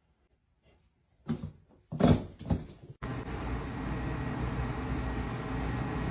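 A few sharp knocks or thumps, about three in a second and a half, followed about halfway through by a steady even background hiss.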